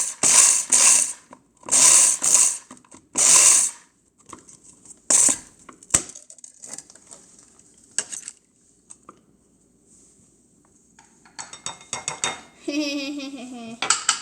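A countertop blender pulsed in four short bursts, crushing hard peppermint candies that rattle and clatter in the jar, followed by scattered lighter clicks of candy pieces.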